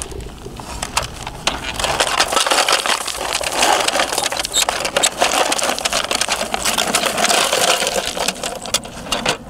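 Dense clattering and scraping: rocks rattling against the plastic of a Bruder toy dump truck as it is moved.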